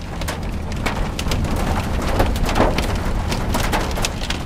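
Dime-sized hailstones striking a moving vehicle, irregular sharp clicks and knocks several times a second, over a steady low rumble of road noise.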